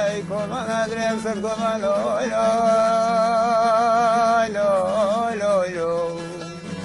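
A man singing a slow, ornamented melody with heavy vibrato, holding long notes, over a steady low drone.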